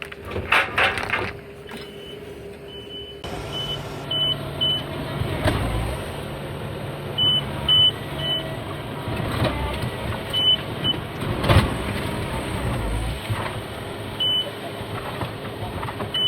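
A vehicle engine runs steadily with its reversing alarm beeping in short runs that start and stop. Several heavy thumps sound over it.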